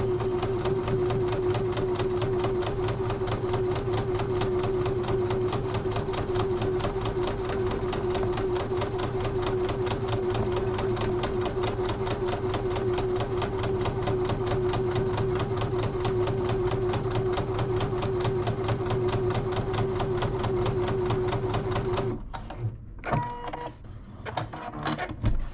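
Electric sewing machine stitching a long quilt seam at a steady fast pace, then stopping about 22 seconds in, followed by a few light clicks.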